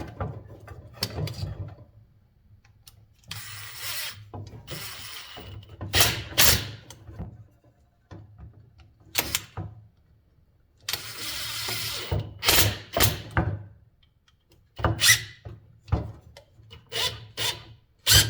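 Intermittent workbench handling sounds from fan-motor repair work: sharp clicks and knocks of metal parts and tools, with a few short rasping or scraping stretches and quiet gaps between them.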